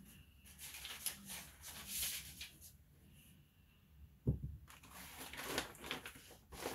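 A sheet of brown paper being handled, rustling and crinkling in two stretches, with a single dull thump about four seconds in.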